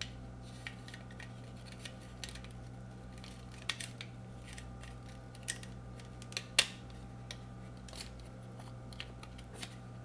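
Scattered small plastic clicks and scrapes as a thin tool pries at the snap-on plastic insulator cover over a garage door keypad's circuit board, with one sharper click about two-thirds of the way in. A steady low hum runs underneath.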